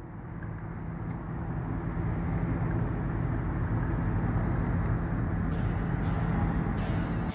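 The van's 5.7-litre V8 idling steadily, heard through the open rear doors; it grows a little louder over the first couple of seconds, then holds steady.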